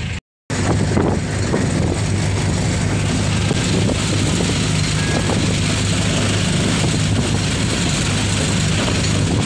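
Engine and road noise of a moving jeepney heard from inside its rear passenger cabin: a steady low hum under a rushing wind-and-road haze. The sound drops out completely for a moment just after the start.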